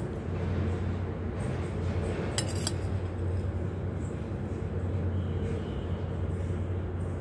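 A metal spoon clinks briefly against a ceramic plate of fried rice about two and a half seconds in, over a steady low hum.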